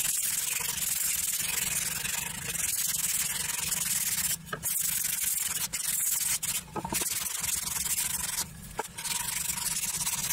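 Sandpaper rubbed by hand back and forth along a weathered wooden board, a steady scratchy rasp with a few short breaks in the second half.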